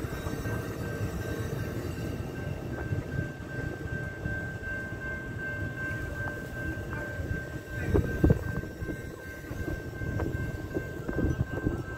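Bi-level Amtrak passenger cars rolling past as the train departs: a steady rumble of wheels on rail broken by clanks and knocks, the loudest a pair about eight seconds in. A faint steady high tone runs over it.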